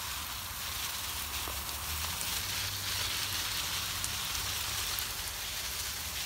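Water from a garden hose spray nozzle showering onto vegetable plants and soil: a steady hiss of spray falling on leaves and dirt.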